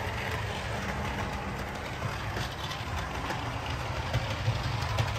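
Hornby RailRoad Plus Class 37 OO-gauge model locomotive running steadily around the track hauling coaches: a constant motor hum with wheels rolling and faintly clicking on the rails.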